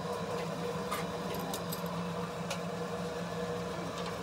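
Steady electric hum of workshop machinery, with a few light metal clicks as a lathe chuck is tightened with a T-handle chuck key onto a truck drive shaft yoke.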